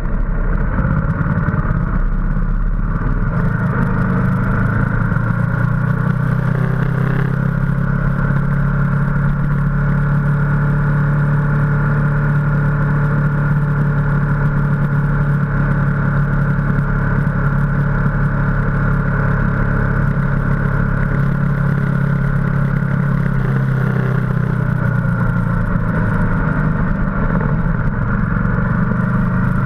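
Ducati motorcycle engine running steadily at cruising speed, heard from a bike-mounted camera, with its pitch shifting briefly a couple of times.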